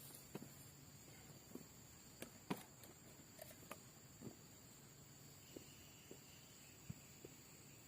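Near silence with scattered faint clicks and taps at irregular intervals, the loudest about two and a half seconds in.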